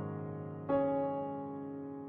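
Background piano music: a soft chord is struck a little under a second in and rings on, slowly fading.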